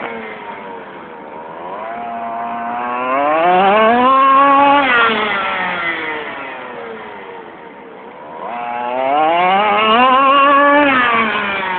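Small engine of a radio-controlled model car running hard. It revs up and eases off twice, its pitch and loudness climbing to a peak about four seconds in and again near ten seconds, and falling in between.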